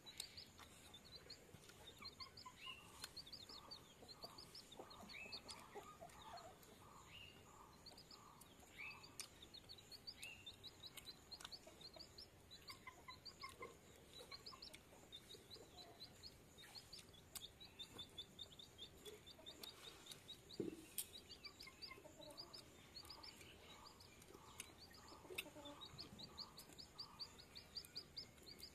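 Faint birdsong: small birds chirping over and over in quick runs of short high notes, with lower pulsed calls now and then and a few soft clicks.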